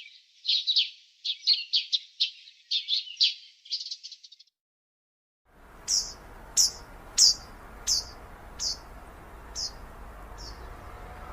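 Small birds chirping: a quick run of high chirps, then, after a moment's break, a series of about eight sharp, falling chirps, evenly spaced and fading away, over a steady background hiss.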